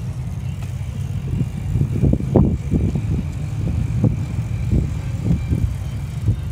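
Wind buffeting a handheld phone's microphone while riding a bicycle: a steady low rumble with irregular gusty thumps, the strongest about two and a half seconds in.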